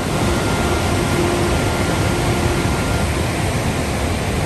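Rushing water: a loud, steady roar.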